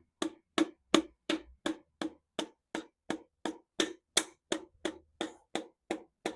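Mallet tapping a piston down through a ring compressor into the cylinder bore of a Mercedes M110 six-cylinder engine, in steady light knocks about three a second.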